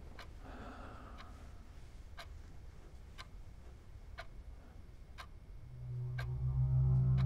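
Steady ticking, one sharp tick about every second. About six seconds in, low droning music fades in and becomes the loudest sound.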